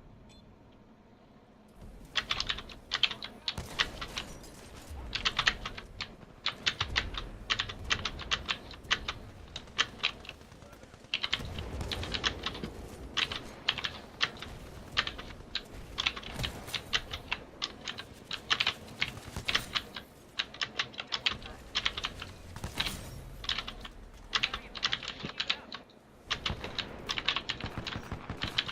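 Typing on a mechanical keyboard with clicky Gateron Blue switches: a fast, uneven run of sharp key clicks, with short pauses.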